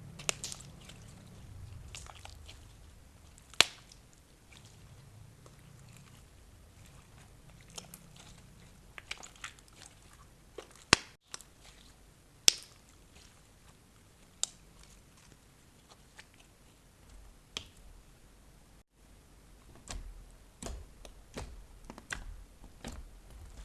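Slime being worked by hand, with scattered sharp clicks and pops and a soft squish between them, busier near the end.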